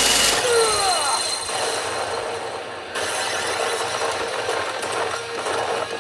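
Sound effects from a P Hokuto no Ken 9 Toushin pachinko machine: a loud rushing noise cuts off just after the start, then a few falling gliding tones and a jumble of mixed effect sounds.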